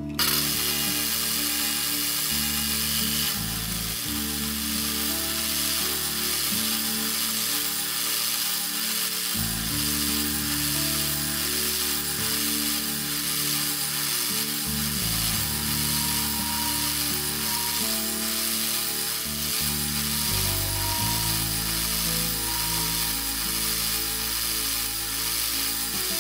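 South Bend 9C metal lathe starting abruptly and then running steadily, its spindle and drive giving a continuous mechanical whir, with background music.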